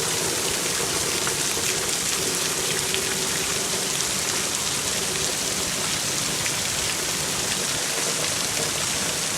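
Heavy downpour: a steady, unbroken hiss of hard rain, with water pouring off the roof.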